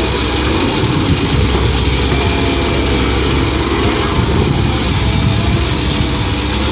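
Diesel engine of a Komatsu PC130-8 hydraulic excavator running steadily.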